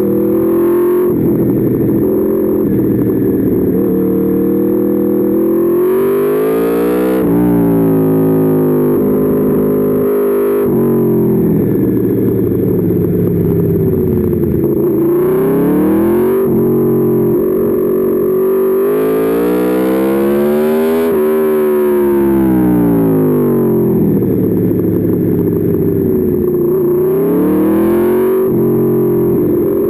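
Aprilia Tuono V4's V4 engine heard onboard on a track lap, revving up through the gears and dropping back under braking, its pitch rising and falling over and over with abrupt steps at each gear change.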